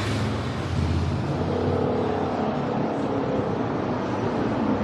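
A motor vehicle engine running steadily, its pitch shifting about a second in.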